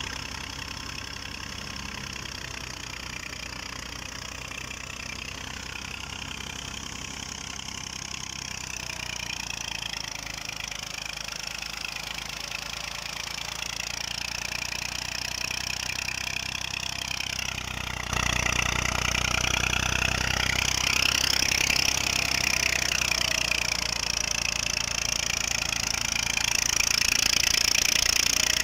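Massey Ferguson 240 tractor's three-cylinder diesel engine running steadily, driving a wheat thresher through its PTO shaft, with the thresher running along with it. The sound steps up sharply in loudness a little past halfway and stays louder.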